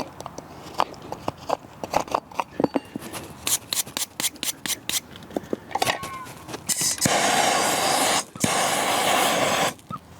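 Farrier's tools working on a horse's hoof to clear off old shoe glue: a run of sharp clicks and scrapes, then two steady noisy stretches of about a second and a half each, beginning about seven seconds in.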